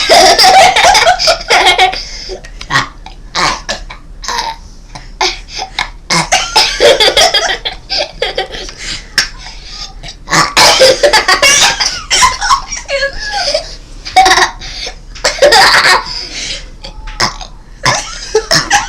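A five-year-old child burping again and again, amid loud bouts of girls' laughter.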